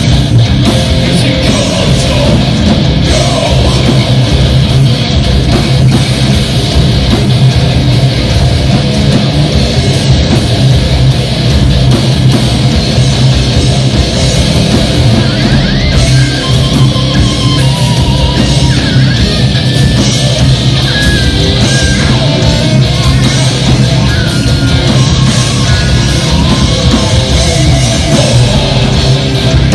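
A heavy rock band playing live: distorted electric guitars over a drum kit, loud and continuous, in an instrumental passage without vocals.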